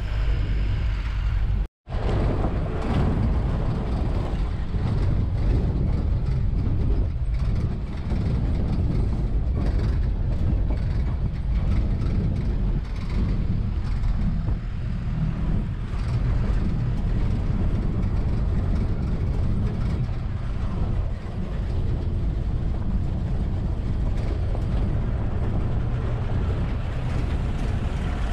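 Open-sided safari canter truck driving along a rough, stony dirt track: steady engine and road noise with mechanical rattling, which breaks off for a moment about two seconds in.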